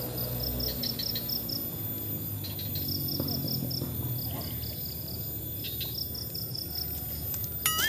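Insects chirping in repeated short trains of quick, high-pitched pulses, over a low steady hum. A brief warbling call comes in right at the end.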